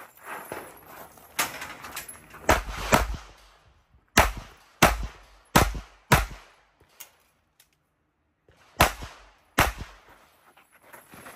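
Pistol shots fired in a string, about nine sharp cracks spaced half a second to a second apart with a pause of about two seconds partway through.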